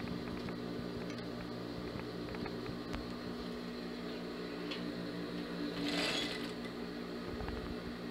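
Jontex industrial sewing machine's motor running with a steady hum, with fabric being handled about six seconds in.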